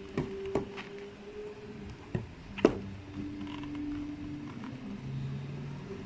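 Black PU slide sandals being handled on a tabletop: a few light knocks and taps, the sharpest about two and a half seconds in. Under them runs a faint low hum that steps down in pitch.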